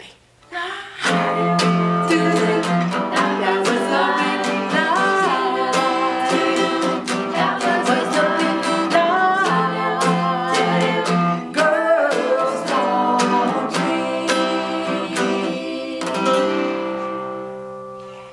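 Acoustic guitar strummed steadily under a woman's singing voice, coming in about a second in after a brief pause. Near the end it closes on a final strummed chord that rings out and fades.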